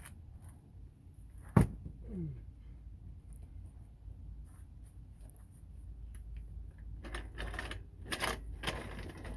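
Handling noises: a single sharp knock about one and a half seconds in, a brief falling squeak just after it, and rustling and scraping near the end.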